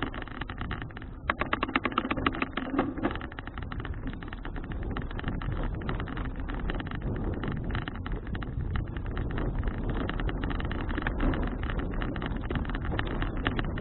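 Wind buffeting an action camera's microphone during a bicycle ride, a steady rushing noise full of crackles, over a low rumble of tyres on the road.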